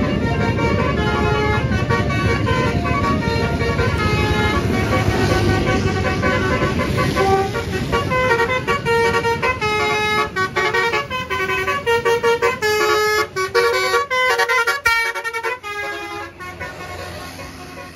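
Basuri telolet multi-trumpet bus horn playing a tune of stepping notes over the bus's engine; from about halfway the notes turn short and choppy, and the sound fades away near the end.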